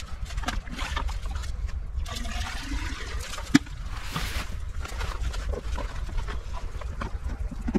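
8 hp diesel engine water pump set running with a steady low throb, with water splashing and trickling and scattered knocks over it; a single sharp click stands out about three and a half seconds in.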